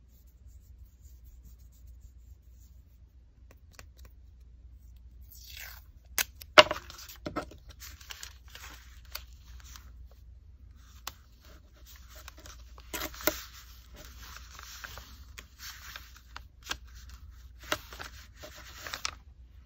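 Paper and tape being handled on a desk: rustling and scraping as small collage pieces and washi tape are torn and pressed down, with a few sharp snaps, the loudest about six and a half seconds in. The first few seconds are quiet.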